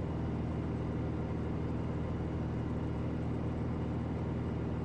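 Steady cabin drone of a Piper Malibu's piston engine and propeller in cruise flight, an even hum with a low tone that holds constant throughout.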